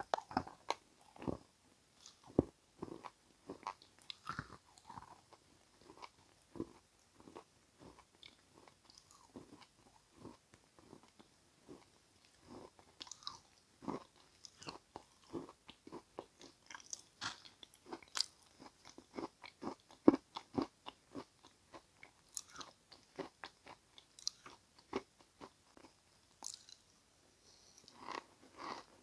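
A person biting and chewing crunchy edible clay and chalk crumbs (Turkestan red and Uralskaya). The crunches are irregular, several a second, with one sharper bite about twenty seconds in.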